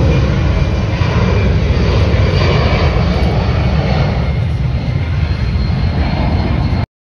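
Airplane engine noise, loud and steady, with a faint high whine above it; it cuts off suddenly near the end.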